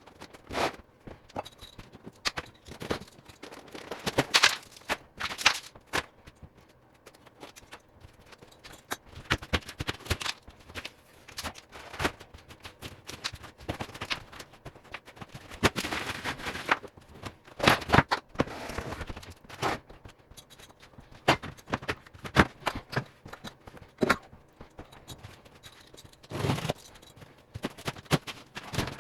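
Drywall being torn off a wall: irregular cracks, knocks and scrapes, with a few louder impacts.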